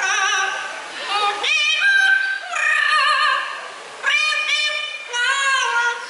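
Parrot singing on cue, mimicking a woman's operatic singing in about five short, high, wavering phrases.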